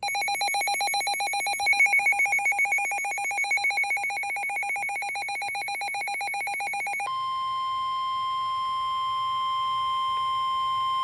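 Emergency Alert System alert tones ahead of a severe thunderstorm warning. A rapidly pulsing electronic alarm tone sounds for about seven seconds, then changes to a single steady tone, the NOAA Weather Radio warning alarm tone.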